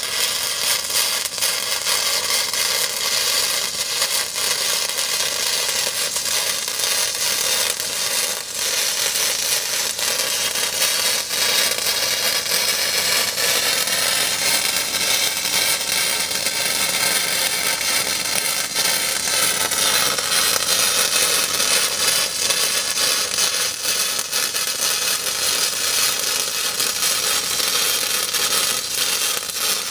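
Flux-core MIG welding arc from a Thermal Arc Fabricator 181i, crackling and spitting steadily as beads are run along a ductwork seam.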